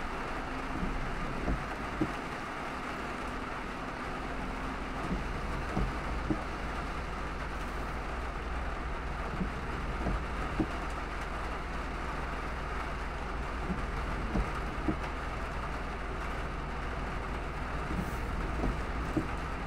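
Car driving through heavy rain: a steady hiss of rain and wet-road tyre noise over a low rumble. Faint knocks come in small groups every few seconds.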